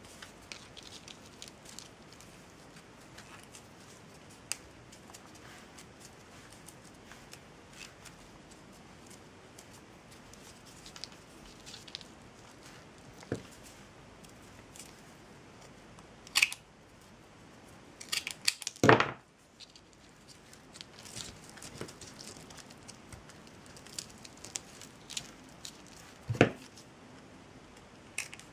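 Small scattered clicks and rustles of hands working glue-soaked jute twine, with a few sharper snips of scissors cutting the twine, three of them louder than the rest.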